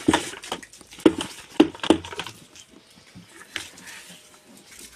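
Goats jostling and feeding at a wooden trough of onion and potato peels: a few sharp knocks in the first two seconds, then softer scattered rustling and small clicks.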